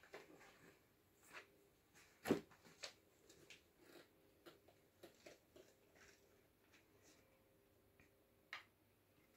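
Near silence broken by scattered faint taps and scuffles of kittens' paws and bodies on a floor mat and sill as they play-fight. The sharpest tap comes about two seconds in.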